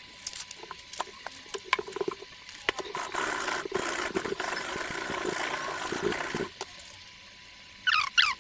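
Coarse 60-grit sandpaper rustling and scraping: scattered clicks and scrapes at first, then a steadier scraping rustle for a few seconds that stops well before the end. A few short high chirps follow near the end.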